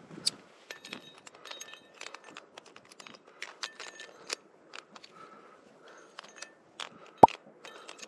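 Metal trad-climbing gear, carabiners and cams on a harness rack, clinking and jingling in many small taps, with one sharp, louder clink about seven seconds in.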